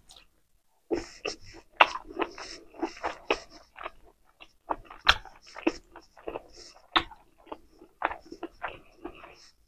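Close-miked chewing of a mouthful of food with the lips closed: a steady run of wet smacks and clicks, several a second. It starts about a second in, after a moment of near quiet.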